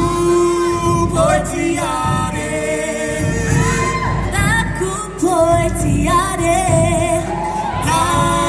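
Group singing a Cook Islands song with long held notes, drums keeping time beneath.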